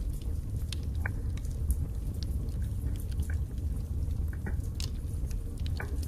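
Wood fire burning in a fireplace: a steady low rumble of flames with irregular sharp crackles and pops from the burning split logs.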